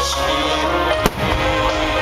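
Music with long held tones, and a single sharp firework bang about a second in.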